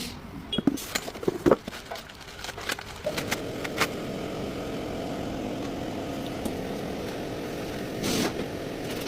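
A few sharp clicks and knocks, then from about three seconds in a car running with a steady hum.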